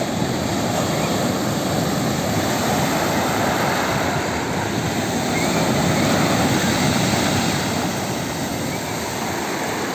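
Sea surf: a steady rush of breaking and washing waves that swells to its loudest a little past the middle and then eases.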